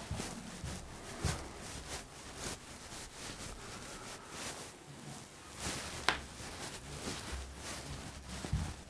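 Whiteboard duster rubbing across a whiteboard in short wiping strokes, with one sharp tap about six seconds in.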